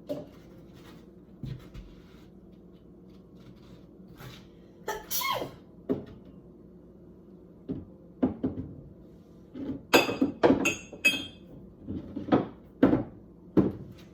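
Kitchen clatter of dishes and cupboard doors being handled: scattered knocks at first, then a quick run of ringing clinks about ten seconds in, followed by several dull thuds.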